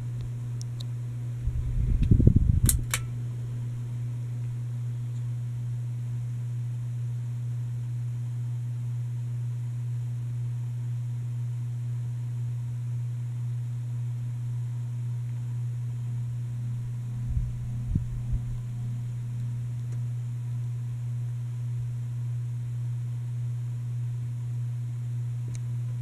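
Hampton Bay Littleton ceiling fan running with a steady low motor hum. A brief low rumble comes about two seconds in, and a weaker one later on.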